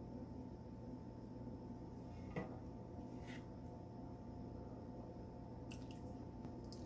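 Quiet room with a steady low hum; a serving spoon clicks once against a glass serving dish about two and a half seconds in, with a fainter tap about a second later and a few light ticks near the end.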